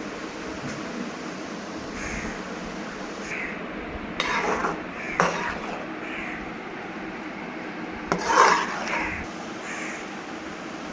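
Crows cawing: a few short, harsh caws, loudest about four seconds in and again about eight seconds in, over a steady background hiss.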